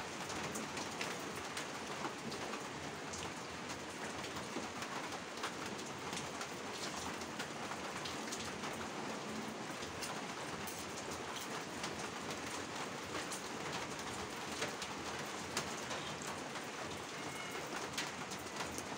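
Steady rain falling, an even hiss with many scattered sharp drop ticks.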